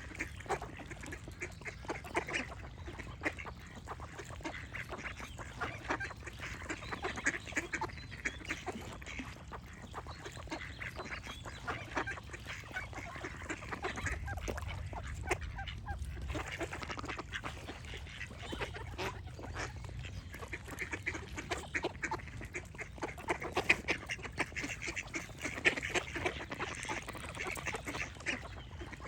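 A flock of ducks quacking and calling, many short overlapping calls, busiest near the end, over a low steady rumble.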